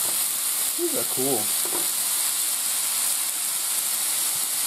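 Frozen zucchini and yellow squash spirals frying on a hot oiled electric griddle plate: a steady, high sizzling hiss as the ice cooks off in steam.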